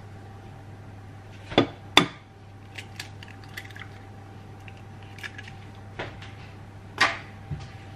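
An egg rapped twice against the rim of a glass mixing bowl to crack it: two sharp knocks about half a second apart, then light clicks as the shell is broken open over the bowl. Another, softer knock near the end.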